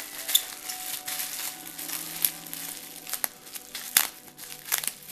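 Bubble wrap crinkling and rustling as it is unwrapped by hand, with irregular sharp crackles scattered through.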